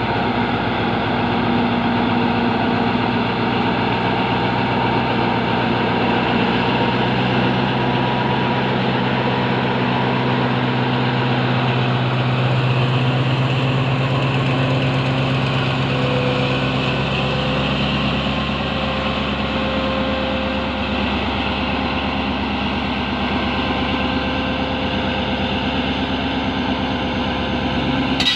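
Alsthom AHK diesel-electric locomotive's engine idling with a steady low hum, louder about ten to sixteen seconds in as it is passed at close range.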